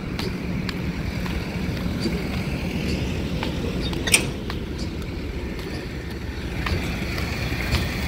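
A motor vehicle engine running steadily with a low rumble, and one sharp click about four seconds in.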